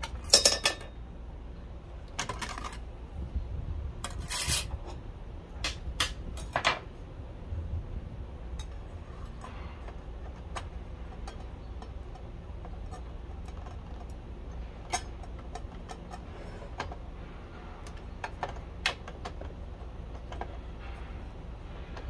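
Scattered metallic clinks and clicks of a circular saw blade and its arbor hardware being handled during a blade change on a miter saw, loudest in the first few seconds, over a steady low hum.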